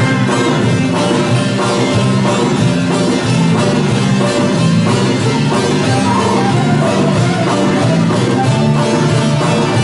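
Turkish folk music ensemble playing a tune with a steady beat, led by long-necked bağlama (saz) lutes plucked together with other folk instruments.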